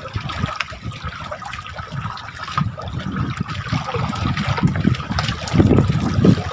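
Sea water lapping and sloshing against the side of a small wooden outrigger boat, in irregular splashes that get louder about five seconds in.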